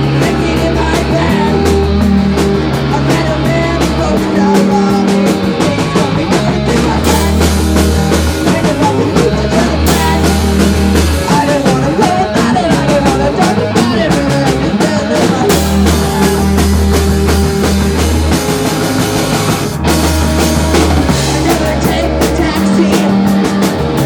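Garage rock band playing loud, fast punk-style rock: electric guitar, bass and drum kit.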